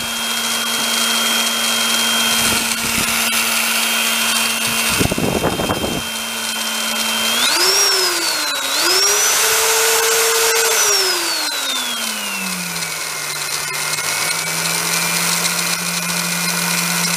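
Old aluminum-case Skil 1/4-inch corded drill, with a mounted grinding stone in the chuck, running on a speed controller. Its motor whines steadily at about half speed, then rises in pitch twice around halfway through and falls back to a lower, steady speed. A brief rough knocking noise comes about five seconds in.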